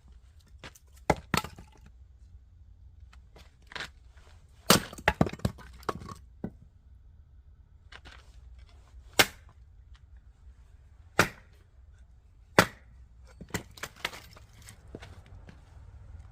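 Oak firewood cracking and snapping as it is broken apart: about a dozen sharp, irregular cracks, with a quick run of them about five seconds in.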